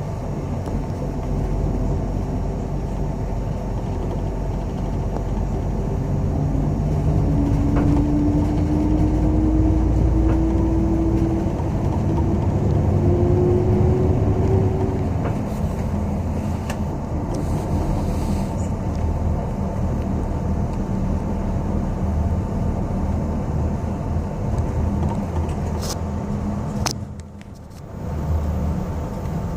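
Steady low rumble of a city bus on the move, heard from inside the cabin. About a quarter of the way in, a whine rises slowly in pitch and gets louder over several seconds. The sound briefly drops near the end.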